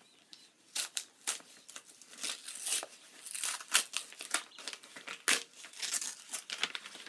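Paper mail being torn open and handled: a string of irregular tearing and crinkling noises, starting about a second in.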